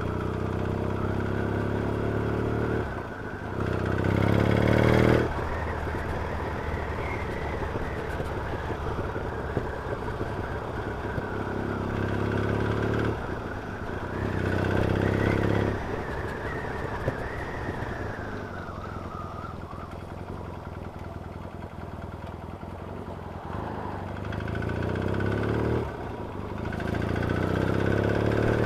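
Yamaha XS650 parallel-twin motorcycle engine under way, pulling up through the gears several times, its pitch rising on each pull and dropping sharply at each gear change, with steadier cruising between. Wind rushes over the microphone throughout.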